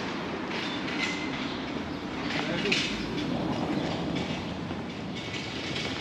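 A train rumbling along nearby railway tracks, a steady rumble with irregular wheel clatter.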